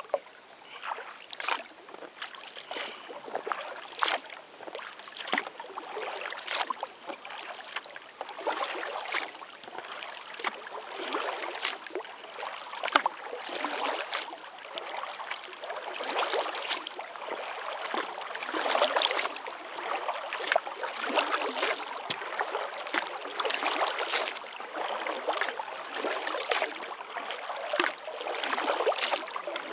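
Kayak paddle strokes: water splashing and dripping off the paddle blades in a steady rhythm, about one stroke every second and a bit.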